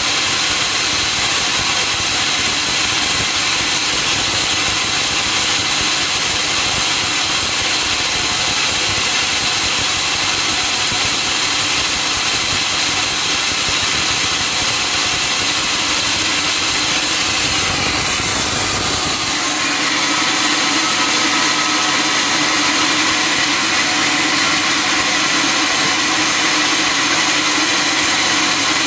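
Sawmill machinery running steadily, a loud machine noise with several steady tones. About seventeen seconds in a tone slides down in pitch, and just after, the deep rumble drops away while the rest keeps running.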